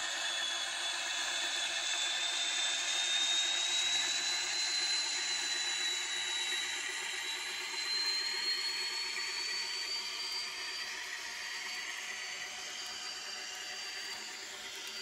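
Sound decoder of an N-scale Fleischmann M62 model locomotive playing the M62's two-stroke diesel engine through the model's small speaker, mixed with the running noise of the model train on the track. A thin whine slowly rises in pitch, and the sound fades in the last few seconds as the train draws away.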